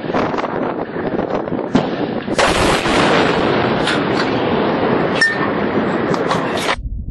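A large explosion's blast recorded on a handheld camera mic, with sharp cracks over wind buffeting the microphone, then a louder, rough roar setting in about two and a half seconds in. The sound cuts off suddenly near the end.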